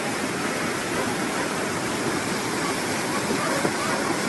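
Huaico, a debris flow of mud and stones, rushing steadily downhill through a street with an unbroken churning noise of fast, heavy water.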